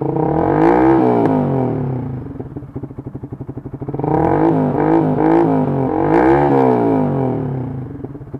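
Yamaha R15 V2's single-cylinder engine running through a Nob1 Titan aftermarket exhaust with the dB killer fitted, being revved by hand. One rev rises and falls in the first two seconds, then the engine idles with a pulsing beat for about two seconds, then comes three quick revs before it drops back near the end.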